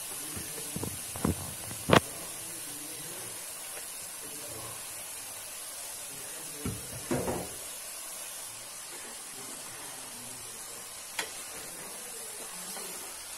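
A plastic bowl knocked a few times against the rim of a metal pot as raw vegetables and lentils are tipped in, the third knock the loudest, then a wooden spatula stirring the pile with a couple of light knocks. A steady faint hiss lies under it throughout.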